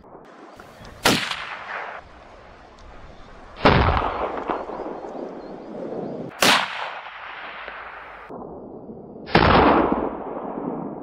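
Four rifle shots, each followed by an echo that rolls away, spaced about two and a half to three seconds apart.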